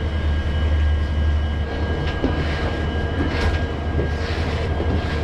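Steady low drone of a stationary passenger train's machinery, with a faint steady high whine over it. In the second half a few short soft brushing sounds come as the coach vestibule floor is swept.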